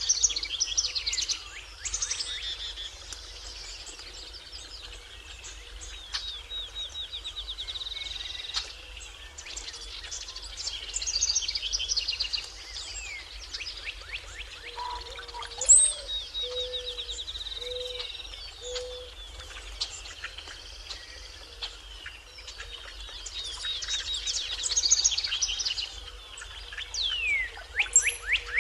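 Several birds singing together in a dawn chorus, with rapid trills and chirps overlapping. From about halfway, a low note repeats about once a second for a few seconds.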